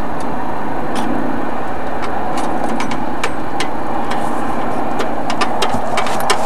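A steady engine-like drone with a run of small, sharp clicks and knocks from about two seconds in, as a dial spring scale and weigh sling are handled to weigh a carp.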